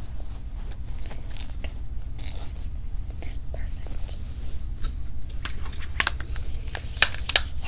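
Close-up ASMR trigger sounds on a binaural microphone: irregular sharp clicks and crackles that come thickest in the last two seconds, over a steady low hum.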